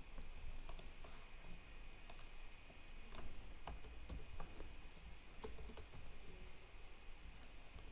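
Faint, irregular clicks of computer keyboard keys being typed, over a faint steady high whine.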